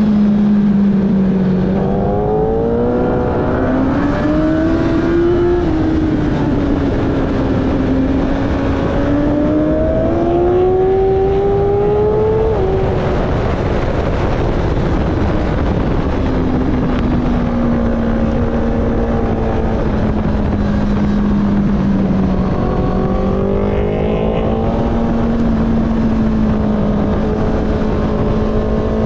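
Sport motorcycle engine heard from an onboard camera at track speed, its pitch climbing under acceleration and falling away through corners, with a sudden drop about twelve seconds in like an upshift. A heavy rush of wind noise runs under it.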